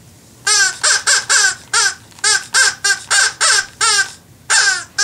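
Parrot squawks: about a dozen short, harsh calls in quick succession, each dropping in pitch, with a brief pause before the last two.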